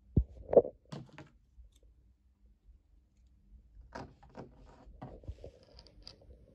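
Handling noise of felt and the device filming it: two soft knocks near the start, then scattered small clicks and rustles about four seconds in.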